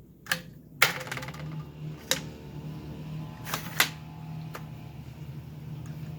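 Hard clicks and knocks of a homemade pipe gun's parts being handled as a removable combustion-chamber 'bullet shell' is swapped and loaded into the breech: about six sharp clacks, one followed by a short rattle, over a steady low hum.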